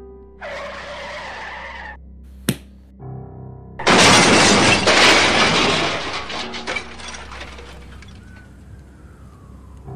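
Car crash sound effect: tyres skidding on the road for about a second and a half, a sharp knock, then a loud crash with breaking glass about four seconds in, bits of debris clattering as it dies away over the next few seconds. Soft music plays underneath.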